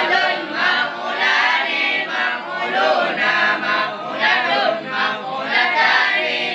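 A group of boys chanting a nadham in unison, a sung verse drill on Arabic verb conjugation (tashrif of fa'ala–yaf'alu), in a plain repeating melody.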